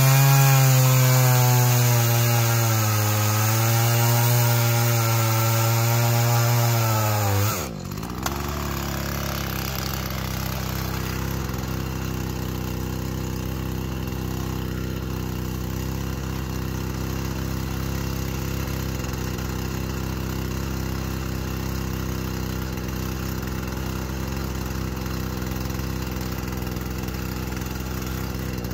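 Chainsaw running at full throttle and cutting through an ash log, its pitch sagging and recovering under load. About eight seconds in the throttle is released and the saw drops away; a steady engine idle carries on for the rest.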